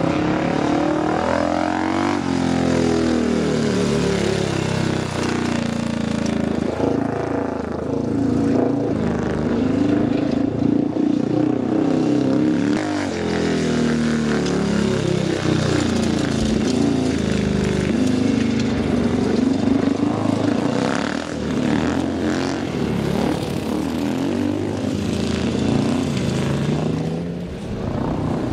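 Single-cylinder speedway motorcycle engines running laps on the track, their pitch rising and falling continually as the throttle is opened and shut, with more than one engine note heard at once.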